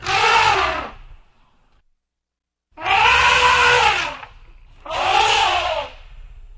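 Elephant trumpeting: three loud calls about a second long each, every one rising then falling in pitch, with a low rumble beneath. The first call opens the clip, and the other two come close together about three and five seconds in.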